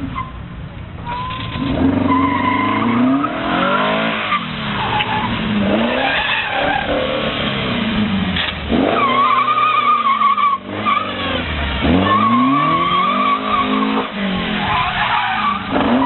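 Super Seven sports car's engine revving up and dropping back again and again as it is driven hard, with the tyres squealing in several long stretches as the car slides through tight turns.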